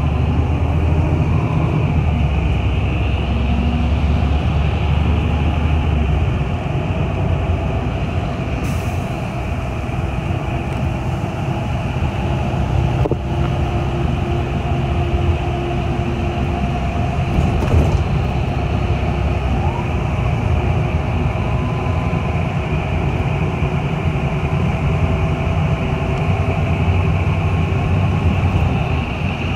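City bus running along the road, heard from inside the cabin: a steady rumble of engine and tyres with a few faint steady hums, and two brief knocks midway.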